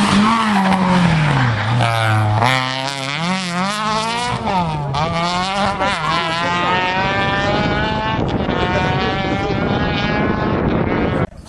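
Rally car engine running hard on a special stage: its pitch drops as the car slows, rises and falls through several gear changes, then climbs steadily as it accelerates away. The sound cuts off suddenly near the end.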